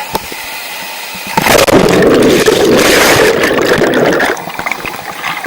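Rushing water at a waterfall plunge pool: a quieter hiss swells to a loud rush about a second in, holds for about three seconds, then drops back.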